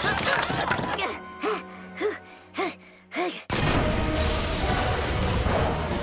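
Cartoon sound effects under music: a busy clatter of wood and thumps as planks are hammered over a door, then four short thuds about half a second apart. About three and a half seconds in comes a sudden loud crash of splintering wood as the boarded door bursts open, followed by a continuing noisy rush.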